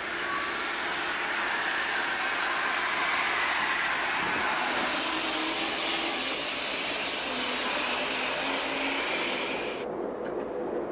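Kitson & Co 0-6-0T steam tank locomotive A.No.5 giving off a loud, steady hiss of escaping steam as it moves slowly past, with no beat of exhaust beats. The hiss grows sharper about halfway through and stops abruptly near the end, leaving a quieter rumble.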